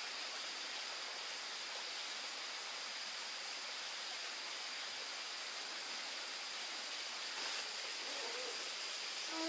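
Steady outdoor background hiss with a faint, steady high tone over it. A short hooting animal call comes right at the end.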